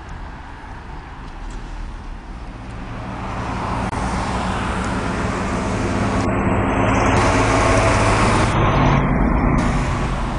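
Road traffic: a motor vehicle passes, its engine and tyre noise swelling over several seconds to a peak about three-quarters of the way through, then easing off.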